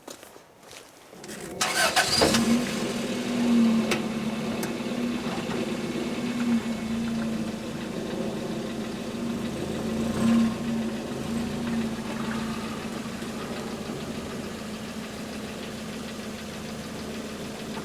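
Toyota Tercel's small four-cylinder engine cranking briefly about a second and a half in, catching, then idling steadily.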